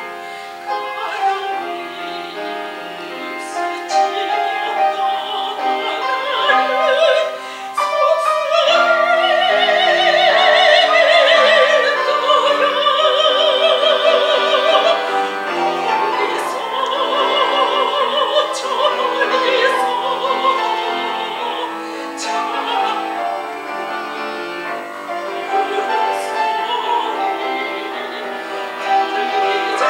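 Soprano singing a Korean art song in full operatic voice with wide vibrato, accompanied by piano. The voice swells to its loudest through the middle of the passage.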